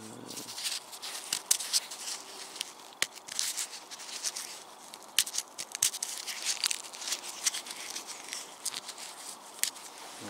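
Parcel tape and plastic crackling and tearing, with many sharp clicks, as a taped-up mobile phone is unwrapped and handled.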